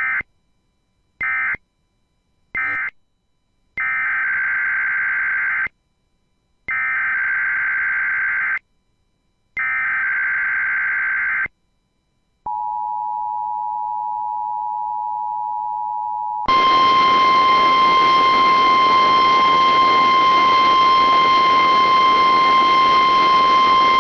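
Emergency Alert System signalling. Three short screechy digital data bursts, then three longer SAME header data bursts about two seconds each, then the two-tone EAS attention signal for about four seconds. About 16 seconds in, a single steady NOAA Weather Radio warning alarm tone takes over, with radio hiss behind it.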